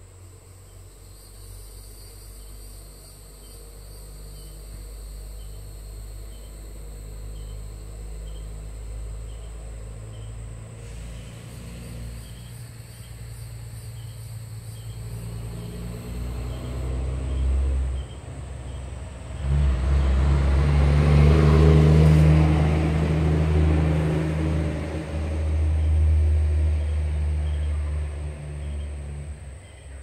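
A motor engine's rumble building slowly for about twenty seconds, jumping louder near the end, then dropping away sharply just as it ends.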